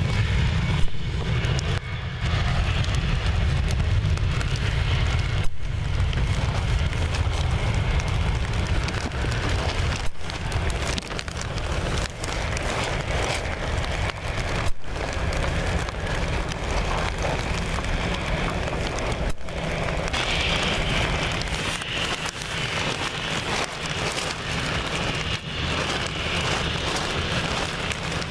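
Heavy rain falling steadily, a dense hiss of drops with a low rumble underneath. The hiss grows brighter about two-thirds of the way through, and the sound breaks off briefly a few times.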